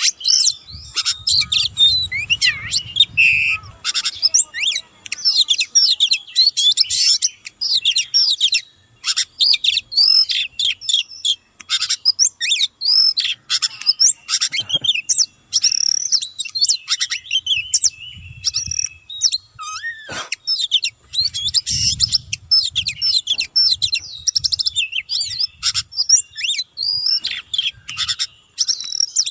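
Oriental magpie-robin (kacer) singing a long, unbroken song of rapid, varied whistles and chirps.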